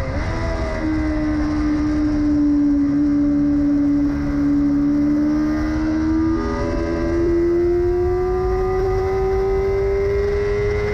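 A Yamaha R6's inline-four engine heard from an onboard camera over wind rumble. The engine note dips at the start and sags slowly through a corner, then jumps up about six seconds in and climbs steadily as the bike accelerates. The engine is firing on only three of its four cylinders.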